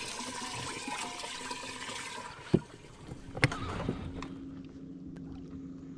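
Water running and splashing in a bass boat's livewell as a caught bass is put in, for about two seconds. Then a sharp knock, a second knock about a second later, and a steady low hum.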